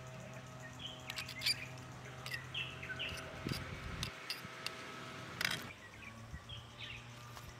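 Metal spoon scooping rice in a metal mess tin, with clicks and scrapes against the tin and a louder knock about five and a half seconds in. Small birds chirp repeatedly in the background over a steady low hum.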